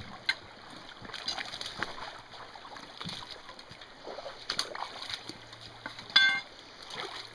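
Boots wading through a shallow, rocky creek: scattered splashes and sloshing steps in the water, with the knocks of walking sticks and feet on stones. About six seconds in comes one loud, short, ringing clink.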